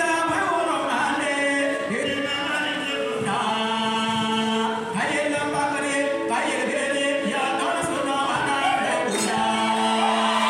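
Choir singing a hymn in sustained, held notes.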